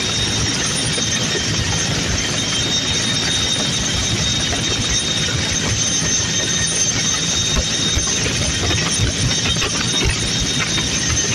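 Helicopter engine and rotor noise heard from on board: a loud, steady rush with a thin high whine over it.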